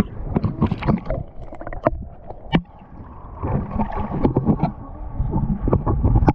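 Water sloshing and splashing with irregular knocks and bumps over a low rumble.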